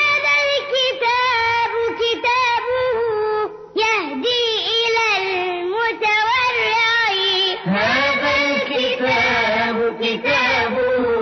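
A high voice singing an Islamic devotional song (nasheed) with long held notes that bend and waver.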